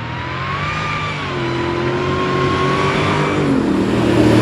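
Supercharged Hellcat Hemi V8 in a lifted Jeep Gladiator, running through a 3-inch exhaust as the truck drives up and goes by. The engine note grows steadily louder, and its pitch falls from about three and a half seconds in.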